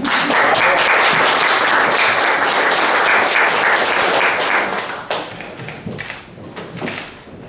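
Audience applauding, steady and dense for about five seconds, then thinning to scattered claps that fade away near the end.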